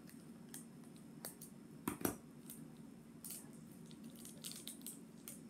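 Scissors snipping through a small candy-kit sachet, with one sharp snip about two seconds in, then light crinkling and ticking of the sachet as it is handled and opened.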